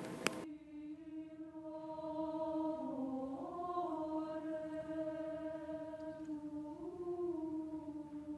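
Slow choral music: voices holding long sustained notes, the chord shifting about three seconds in and again near seven seconds.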